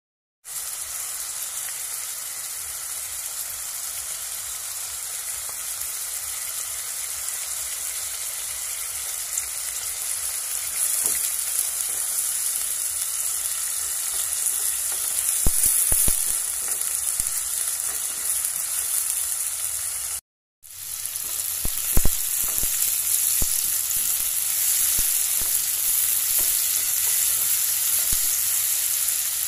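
Pork pieces sizzling steadily as they fry in hot oil in a pan, with a few sharp knocks of the spatula against the pan; the sound cuts out briefly about two-thirds through, and the loudest knock comes just after.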